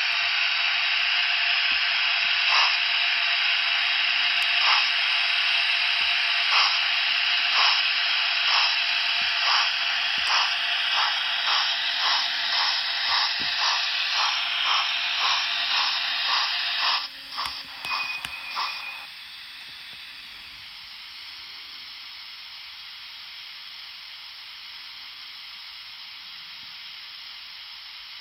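Dapol A4 Mallard model locomotive's DCC sound decoder playing a steam exhaust: steady hiss with chuffs that come faster and faster as the loco picks up speed. About 17 seconds in the chuffing falls away into a few ragged beats, leaving a quieter steady hiss, as steam is shut off.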